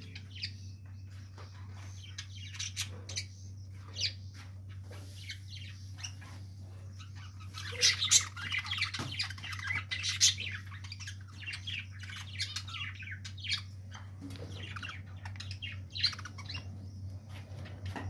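Budgerigars chirping in an aviary: many short, high chirps throughout, busiest from about halfway through for a few seconds, over a steady low hum.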